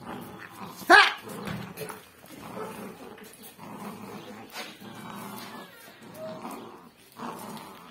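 Puppies growling in short repeated bouts while they bite and tug at a trouser leg, with one sharp high yelp about a second in.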